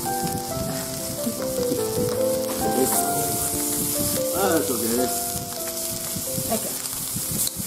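Shrimp sizzling on a ridged electric indoor grill plate, a steady hiss, over background music of held notes stepping up and down.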